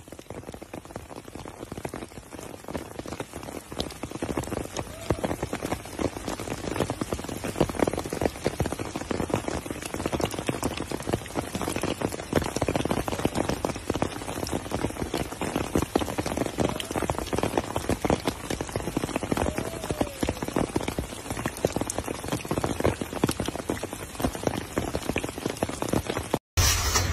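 Rain falling steadily, a dense pattering of drops that swells over the first few seconds.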